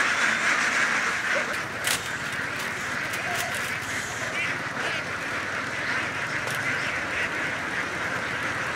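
A large flock of domestic ducks quacking all at once, a dense, steady din of overlapping calls, with a single sharp knock about two seconds in.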